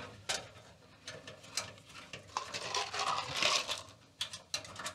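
Hand screwdriver turning a long screw out of an Amiga 2000 motherboard's mounting, with small metallic clicks and a stretch of scraping and rustling about halfway through.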